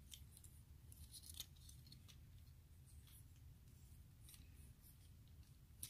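Faint, sparse plastic clicks and scrapes of a Legends-class Transformers Windcharger figure's parts being moved and rolled out during transformation, over a low steady room hum.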